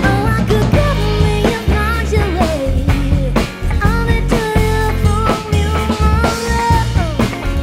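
Live band music: a drum kit keeping a steady beat with cymbals, a double bass playing a low walking line, and a bending lead melody over the top.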